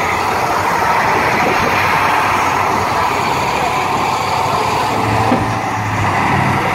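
Diesel engine of a heavy 8x8 military truck carrying a Pantsir-S1 air-defence system, running loudly as it drives slowly past close by.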